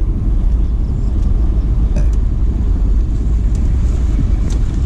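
Steady low rumble of riding in an open vehicle along a road, with wind buffeting the microphone and a few faint light knocks.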